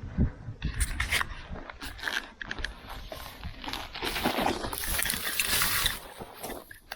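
Scraping and crunching as a gutted deer carcass is dragged and slid down a steep slope, with a longer sliding rush about four to six seconds in.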